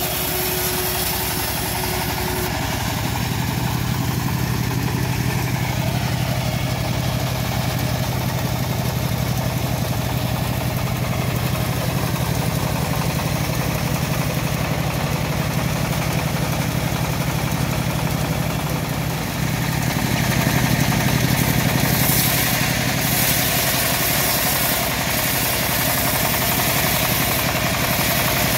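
Single-cylinder stationary diesel engine running steadily, driving a home-built bandsaw sawmill. About twenty seconds in the sound grows louder and hissier as the band blade saws into a teak log.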